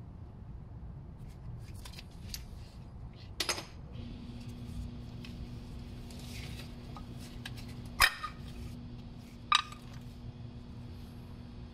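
Sharp metallic clicks and clanks of a pry tool and brake pads against a Mercedes W212 front brake caliper as the pistons are pushed back and the old pad is worked out; three louder clanks, the loudest about eight seconds in.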